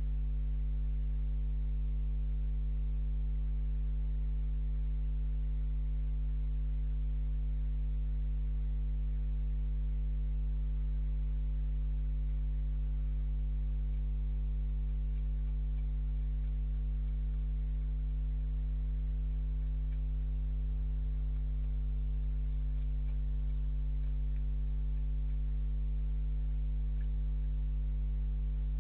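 Steady low electrical mains hum with a buzz of overtones above it, unchanging at the same level throughout.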